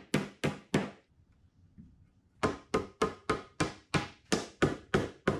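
Rubber mallet knocking a red oak board down onto Domino tenons to close a glued edge joint. A few quick knocks, a pause of about a second and a half, then a steady run of about four knocks a second.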